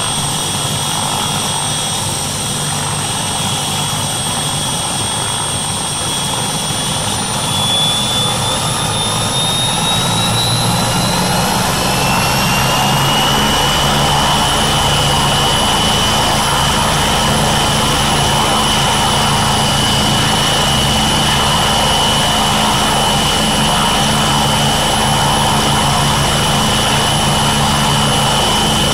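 MBB Bo 105 helicopter running on the ground with its twin Allison 250 turboshaft engines and four-blade main rotor turning: a steady low rotor beat under a high turbine whine. About seven seconds in, the whine rises in pitch and gets a little louder, then holds steady at the higher pitch as the engines run up.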